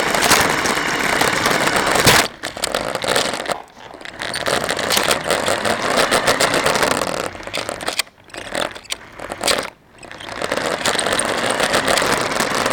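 RC car driving, heard through a camera mounted on it: motor and wheels running with rattling and scraping. It eases off a few times and picks up again, with a sharp knock about two seconds in.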